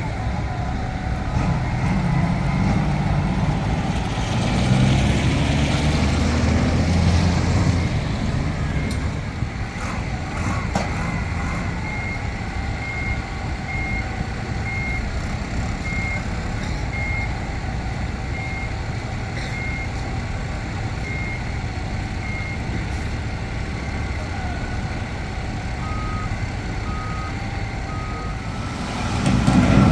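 Diesel engine of a Nippon Sharyo DH408-95M crawler pile driver running, swelling for a few seconds after the start. Through the middle a travel alarm beeps about once a second, and three lower-pitched beeps sound near the end.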